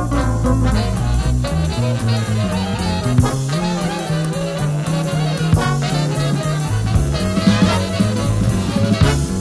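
Big band swing music: saxophones and brass playing over a bass line and drum kit.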